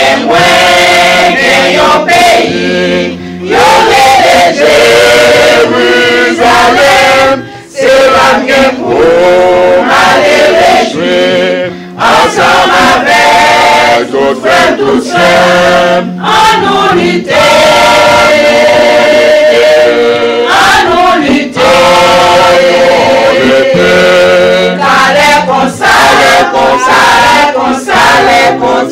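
A women's church choir singing a Haitian Creole hymn together, with steady low accompaniment notes underneath.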